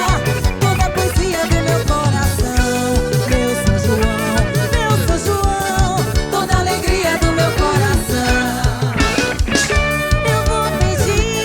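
Band playing upbeat festa junina dance music with a steady driving beat and a lead melody line.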